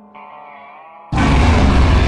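Instrumental music: a quiet held chord, then about a second in a sudden loud, dense burst with a deep boom in the low end.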